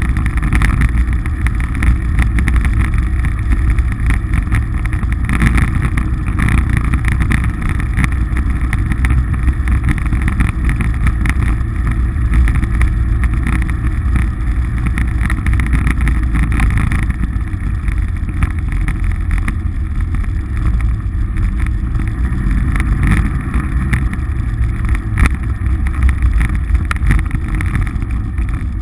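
Polaris RZR side-by-side's engine running steadily as it drives along a dirt track, a low, even drone with no shifts or revs.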